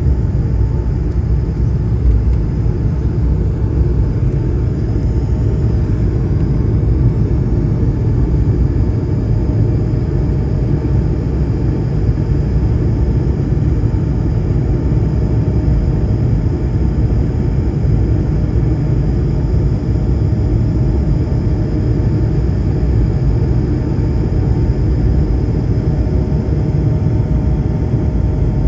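Jet airliner engines heard from inside the passenger cabin during the takeoff climb: a loud, steady low rumble with faint, steady whining tones above it.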